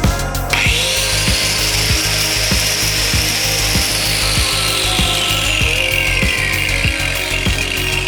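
Zubr UShM-P125-1000 125 mm angle grinder spinning up with a high whine about half a second in, then its pitch sinking slowly as it bears into the work under load. A steady music beat runs underneath.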